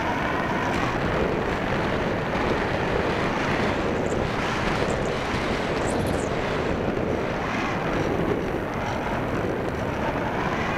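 Steady rush of air and airframe noise picked up by a camera riding on an electric RC glider (E-Uhu) in flight, with a faint high whine that rises and falls about six seconds in.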